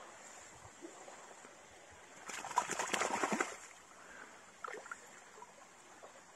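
Irish setter wading through shallow water, splashing in a burst of about a second near the middle, then a few smaller splashes.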